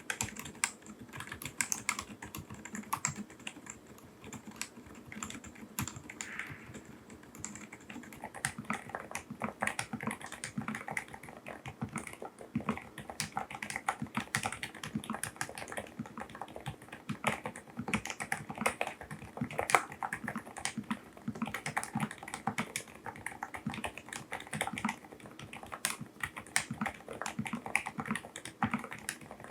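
Continuous typing on a mechanical keyboard fitted with silent switches: a quick, irregular run of soft, muted keystrokes.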